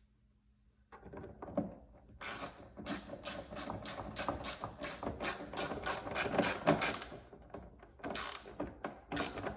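A tool driving in the 9/32-inch fasteners at the bottom of a car door trim panel: a fast, regular run of clicks, about four a second, from about two to seven seconds in, with a few more near the end.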